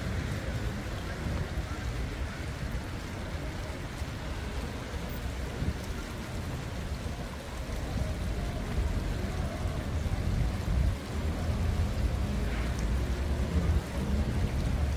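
City street ambience: a steady, low rumble of traffic and outdoor noise.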